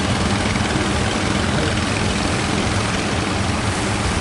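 Boat's diesel engine running steadily, its low hum laid over a constant rush of wind and surf noise.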